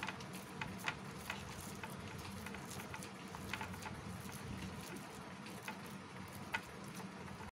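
Hands kneading soft milk-powder and coconut dough in a plastic bowl: faint squishing with scattered light taps against the plastic, over a low steady hum.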